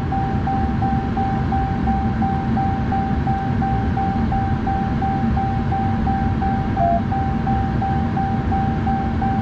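Ram 3500 instrument-cluster warning chime beeping steadily at about three beeps a second, with one lower beep about seven seconds in, over a steady low rumble. The chime goes with the dash lighting up with warnings after a failed speedometer calibration attempt with the ProCal Snap.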